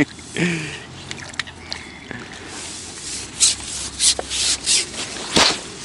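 Rubbing and rustling handling noises: a handful of short, sharp scrapes in the second half, the loudest near the end, typical of handling a freshly landed small carp and tackle.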